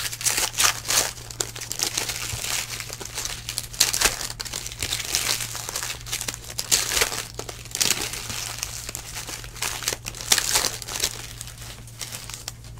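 Foil wrappers of Donruss Elite Football trading-card packs crinkling and tearing as they are ripped open and handled, in irregular crackly bursts, over a steady low hum.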